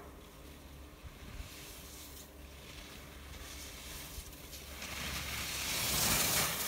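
Skis scraping across groomed, packed snow as a skier skids through a turn close by: a hiss that swells over the last couple of seconds, peaks near the end and then falls away. A faint low wind rumble lies under it before that.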